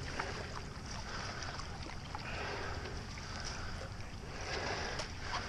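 Stand-up paddleboard paddle strokes on calm water: the blade swishing through the water with small splashes and drips, swelling gently every couple of seconds.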